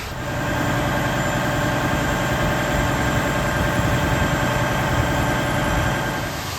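An engine idling steadily, a constant pitched hum that sets in just after the start and eases off near the end.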